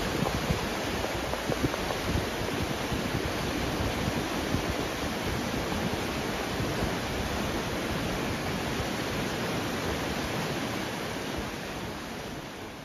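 Fast, shallow mountain river rushing over a rocky bed: a steady rush of white water that fades out near the end.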